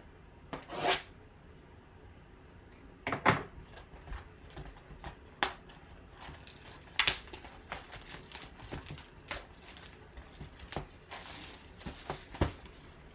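Scattered clicks, taps and short crinkling rustles of trading-card packaging being handled and opened.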